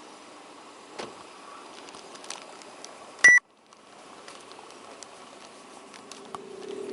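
A short, sharp electronic beep about three seconds in, after which all sound cuts out abruptly for a moment before the background returns.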